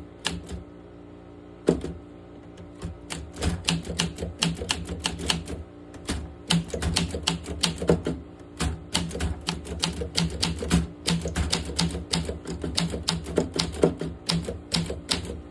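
Olympia SM7 manual typewriter being typed on: a single sharp key strike a couple of seconds in, then a fast, uneven run of keystrokes, several a second, the typebars snapping against the platen.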